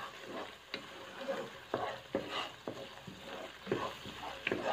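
Spatula stirring thick chili sambal in a pot, with irregular scrapes and taps against the pan while the paste sizzles lightly as it is sautéed.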